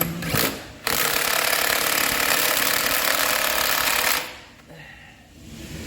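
Handheld power tool running: a short burst, then one steady run of about three seconds that cuts off sharply.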